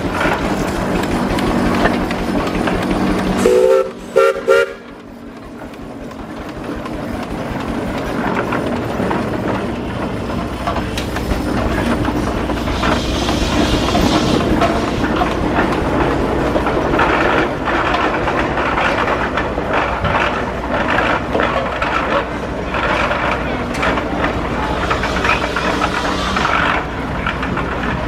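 1906 Frick steam traction engine running and moving under its own steam, a steady mechanical running noise with irregular clanks. About four seconds in, a steam whistle gives three short blasts.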